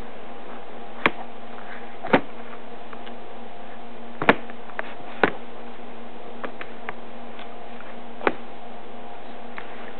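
Glass baby-food jar knocking against a high-chair tray as a baby grabs, lifts and sets it down: about five sharp knocks at irregular intervals, the loudest about four seconds in, with fainter ticks between, over a steady hum.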